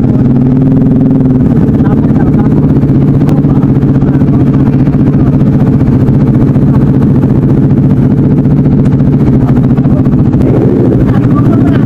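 Motorcycle engine idling steadily, a constant low running note with no revving.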